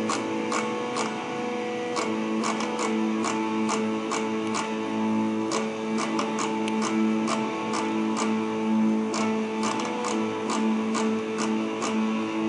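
Electric guitar playing the instrumental opening of a hard rock song: sustained, ringing chords and notes picked and strummed in an even rhythm.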